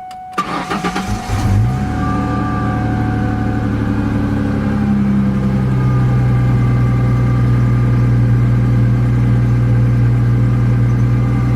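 2004 Ford Mustang's 3.9 L V6 engine catching with a short rising burst in the first second or so, then idling steadily and evenly. It runs smoothly now that the cylinder 3 misfire is cured by repairing a heat-damaged spark plug wire.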